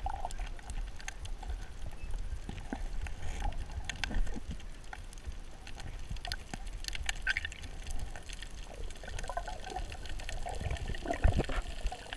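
Muffled underwater sound picked up through an action camera's waterproof housing: a steady low water rush with scattered crackling clicks. Near the end there are heavier swishes and gurgles of moving water as the camera nears the surface.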